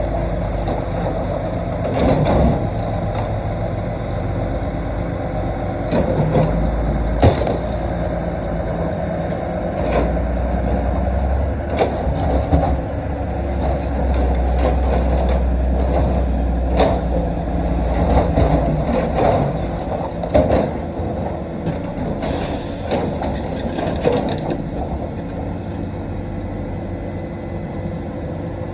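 Komatsu PC220-6 hydraulic excavator's diesel engine running steadily under load while digging rock, with scattered sharp knocks. The engine sinks into a deeper rumble for several seconds in the middle, and a hiss lasts about two seconds near the end.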